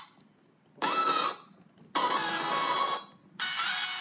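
Short electronic music samples triggered by pressing pads on a Novation Launchpad Mini. Three bright synth clips with gliding notes sound one after another, each cutting off within a second, with brief silences between them.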